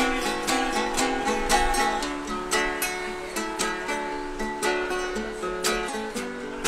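Solo acoustic guitar played with a steady rhythm of plucked and strummed notes, the instrumental lead-in before the song's vocals begin.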